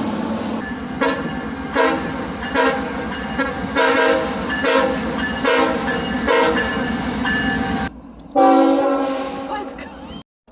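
Train horn sounding a sustained multi-note chord over a passing train, with regular clacks about every 0.8 s. After a brief break, a second loud horn blast begins about eight seconds in and fades away.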